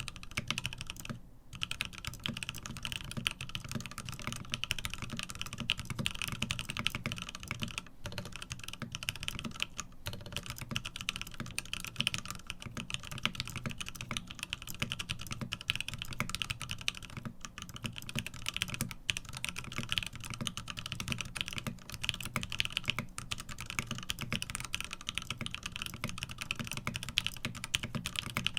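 Fast, continuous typing on a Satisfaction75 mechanical keyboard with CannonCaps CXA doubleshot PBT/ABS keycaps, lubed and filmed Lavender switches and an FR4 plate, broken by a few brief pauses.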